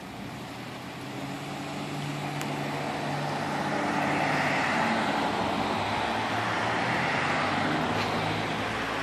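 A car passing on a rain-soaked street: tyre hiss and engine hum swell to a peak about halfway through, then fade.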